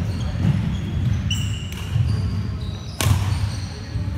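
Badminton rally on an indoor court: shoes squeak briefly on the sports-hall floor several times, and a racket hits the shuttlecock sharply about three seconds in, echoing in the hall over a steady low rumble.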